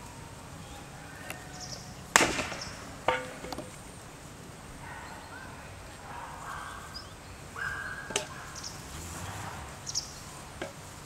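Several sharp knocks or clicks, the loudest about two seconds in and others near three, eight and ten seconds, over a steady outdoor background with a few faint short calls.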